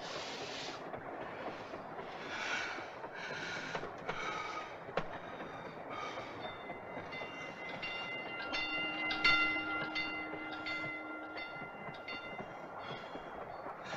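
Train running on the rails, a steady rumble with a regular rhythmic clatter. About six and a half seconds in, a steady high-pitched whine of several tones at once joins the clatter and fades out a few seconds later.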